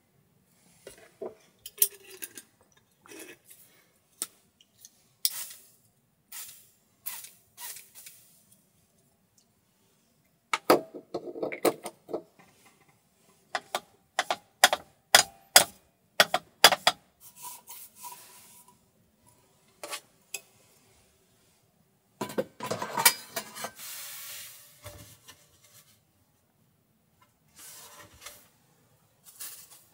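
Tidying-up handling sounds: irregular sharp clicks and knocks of a small hot-sandwich maker and other items being handled and set down on a table, with stretches of paper-towel rustling and wiping.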